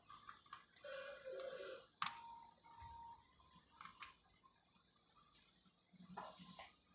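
Faint clicks and ticks of plastic wire-harness connectors being handled and seated on a copier's controller board, with one sharper click about two seconds in.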